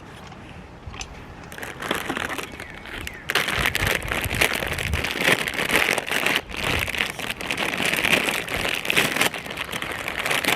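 A plastic snack bag of Fritos corn chips crinkling as it is handled. The sound is faint at first and turns into a loud, continuous crackle about three seconds in.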